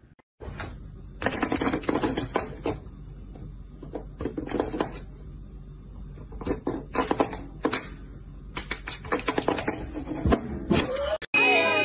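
Bursts of rapid plastic clicking and rattling as the round cap of a desk cable grommet is pushed up and knocked about from below by a cat's paw.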